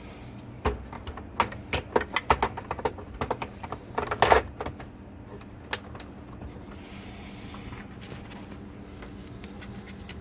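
Plastic parts of a pool cleaner clicking and knocking as they are handled, a rapid run of sharp clicks for about four seconds, then a few scattered clicks over a steady low hum.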